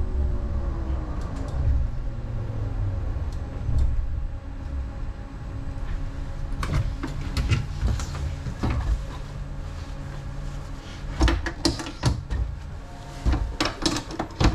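A light rail car settling to a stop with a low rumble, then a series of clicks and knocks from the driver's controls as the driving mode is switched from manual to automatic. The knocks come in clusters near the end.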